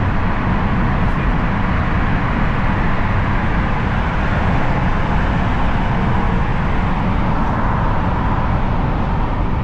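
Steady road and engine noise of a car being driven, heard from inside the cabin: an even rush with no distinct events.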